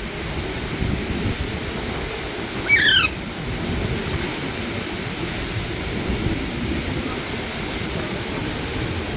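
One short, falling screech from an Alexandrine parakeet about three seconds in, over a steady low rumble.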